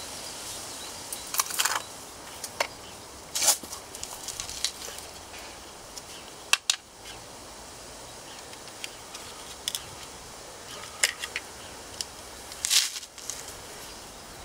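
Scattered light clicks and taps of a small screw and a Phillips screwdriver being handled, at irregular intervals over a steady background hiss.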